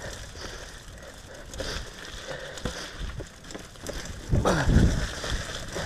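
Downhill mountain bike tyres rolling fast over dry fallen leaves and dirt, a continuous crackling and crunching with the frame and chain rattling and knocking over bumps. About four and a half seconds in it grows louder, with a pitched sound falling in pitch.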